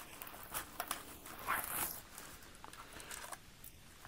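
Faint rustling and small scrapes of a protective sleeve being slid off a thin keyboard, in a few short swells, quieter in the last second or so.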